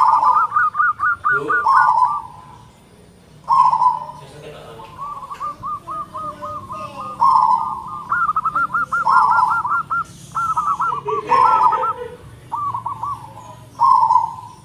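Zebra dove (perkutut) cooing: loud, long coos alternating with quick runs of short staccato notes, the song repeated several times.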